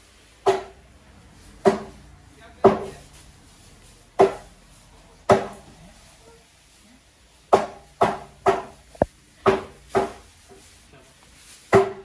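Butcher's cleaver chopping raw chickens into curry-size pieces: about a dozen sharp chops at uneven intervals, several coming in quick succession near the middle.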